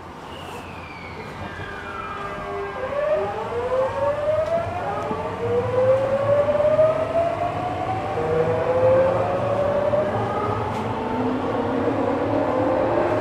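Tokyu 9000 series electric train pulling away and accelerating, heard from inside the car: its GTO-VVVF inverter traction drive whines. A high tone falls over the first three seconds, then a series of tones rise in steps while the running noise grows louder.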